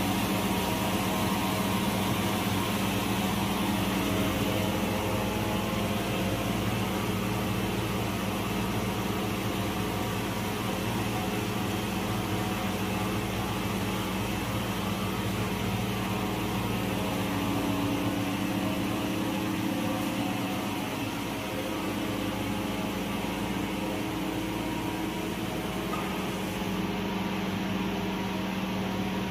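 Circular knitting machine for mink blanket and faux-fur carpet fabric running steadily: a continuous mechanical hum with a steady low drone.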